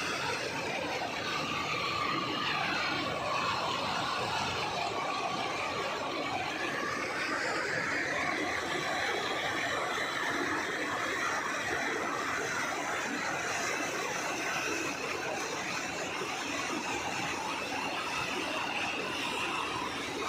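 A river in flood after the first heavy rain, its water rushing steadily.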